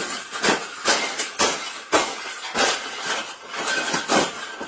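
A wire cage being knocked and rattled in sharp strokes about two a second, some with a faint metallic ring.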